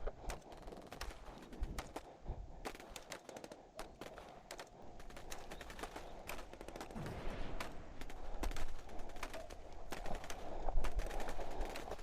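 Airsoft replicas firing: a scattered run of short, sharp cracks and clicks, coming thicker and louder in the second half.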